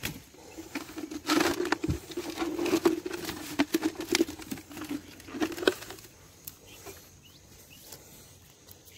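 Plastic bottle being handled, with irregular crinkling and clicking from about a second in until nearly six seconds, then only faint background.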